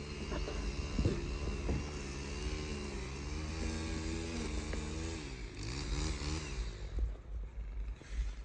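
An engine idling steadily, its pitch wavering a little about five seconds in before it fades near the end.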